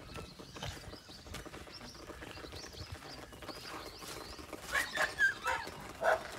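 Birds chirping faintly, then, from about three-quarters of the way in, a dog barking repeatedly, about two barks a second.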